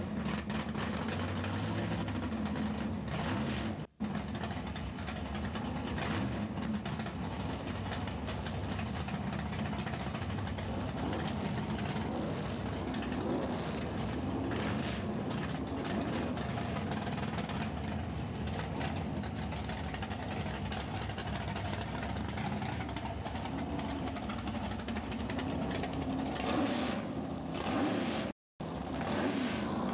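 Drag race car engine idling steadily, a constant rough drone, with background chatter. The sound cuts out briefly about four seconds in and again near the end.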